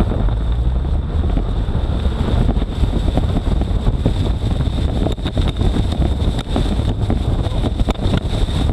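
Vehicle accelerating and driving fast along a gravel lane, engine and tyre noise under heavy wind buffeting on the microphone, with a rapid clatter of hits as the side-mounted welded grass cutter and the body thrash through tall grass and gravel from about two seconds in.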